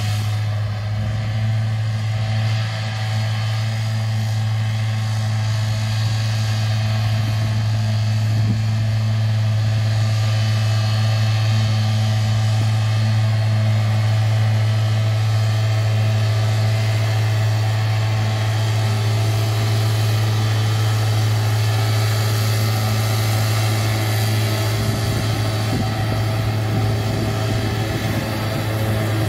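A tractor and its grass mower running steadily while cutting a field, a constant low drone that gets a little louder as the tractor draws closer.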